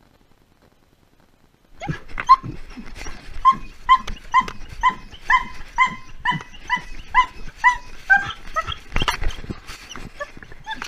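Dog barking in a rapid run of short, high yips, about two a second, starting about two seconds in, with rustling and knocks, one louder knock about nine seconds in.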